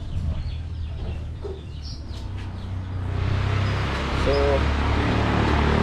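Chickens clucking in the background over a steady low hum, with a short call a little past halfway. A broad rushing noise swells up about halfway through and grows louder.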